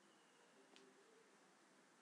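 Near silence: faint room tone and hiss, with one faint click a little under a second in.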